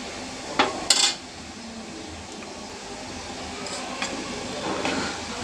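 Oil sizzling steadily as green banana slices deep-fry in a steel pot. A metal utensil clinks sharply against the pot twice about a second in, the loudest sounds, with a few lighter knocks near the end as the slices are turned.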